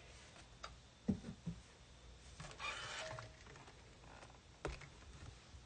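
Faint handling sounds as a steam iron is set down on a terry towel: a few soft knocks about a second in, a brief hissing rustle about two and a half seconds in, and a sharp click near the end.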